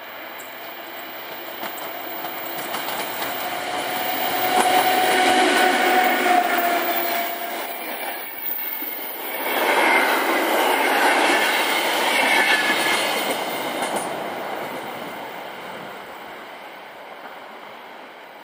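A PKP EU07 electric locomotive hauling a train of passenger coaches passing close by. It grows louder over the first few seconds and is loudest as the locomotive goes by about five seconds in, with a thin steady whine over the running noise. The rolling clatter of the coaches follows, with higher whines, and fades away over the last few seconds.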